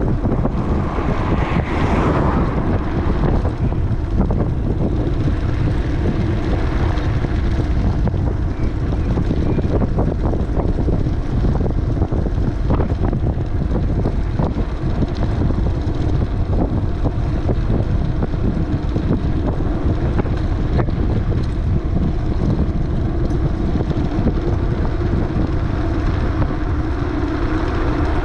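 Wind buffeting the microphone during a bicycle ride: a loud, steady rumble, with faint ticks and rattles scattered through it.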